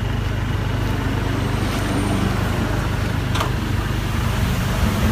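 Steady low rumble of a vehicle engine idling, with a faint click about three and a half seconds in.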